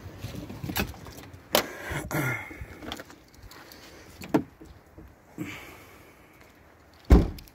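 Knocks and clicks of a car door and things being handled at the car, with a short falling squeak about two seconds in, then a car door shut with a heavy thump near the end.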